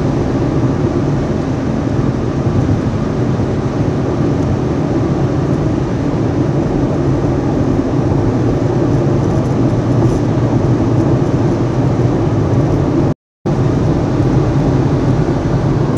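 Steady road and engine noise inside a moving car's cabin at cruising speed. The sound cuts out for a moment about thirteen seconds in, then resumes unchanged.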